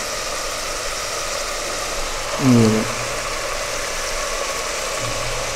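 Chicken and masala frying in hot oil in a pot: a steady sizzle.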